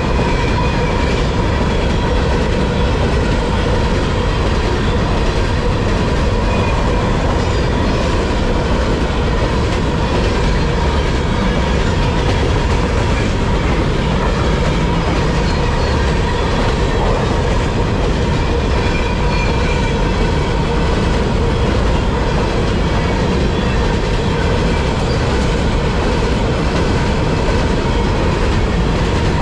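Long freight train of covered hopper cars, among them Canpotex potash hoppers, rolling past at speed: a steady rumble of steel wheels on rail, with a steady high tone over it.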